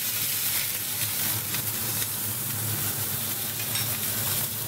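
Beef tenderloin steaks sizzling steadily as they sear in a hot stainless steel frying pan with a little oil, with faint crackles through the hiss. A low steady hum runs underneath.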